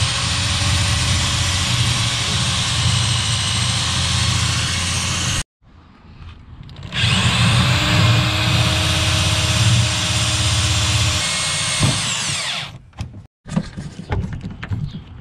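Power drill running in two long runs of about five seconds each, its motor whine rising as it spins up and falling as it stops. A few light handling knocks follow near the end.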